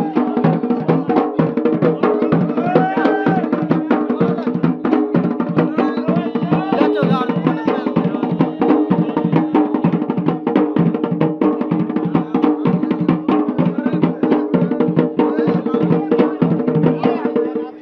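Garhwali dhol, a rope-tensioned two-headed barrel drum, beaten in a fast, dense rhythm over a steady droning tone.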